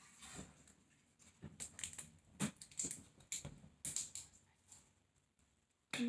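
Thick paintbrush dabbing and mixing blue paint on a ceramic plate used as a palette: a run of about ten soft, irregular taps and scrapes.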